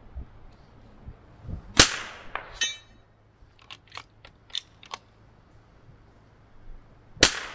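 Scoped bolt-action rifle fired twice, about five and a half seconds apart, each shot sharp and loud. Between the shots comes a run of short metallic clicks and clacks as the bolt is worked to chamber the next round.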